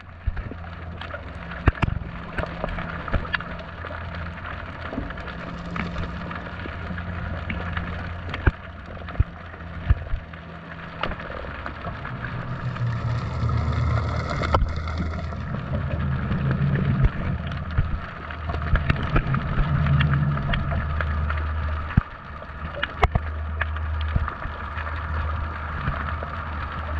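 Underwater sound picked up by a submerged action camera: a steady low drone that swells about halfway through, with scattered sharp clicks throughout.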